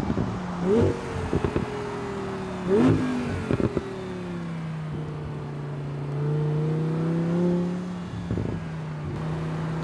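Audi R8 V10 Spyder's 5.2-litre V10 engine heard from outside as the car drives by. Its pitch jumps sharply upward twice, each time followed by a quick run of short crackles. The engine then runs at a steady, slowly wavering pitch.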